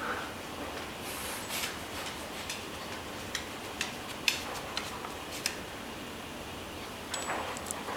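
Scattered light clicks and taps, about a dozen at irregular intervals, the sharpest just past the middle, over a faint steady hiss.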